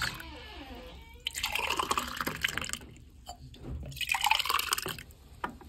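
Liquid being poured, in two pours of about a second and a half each, the first beginning a little over a second in.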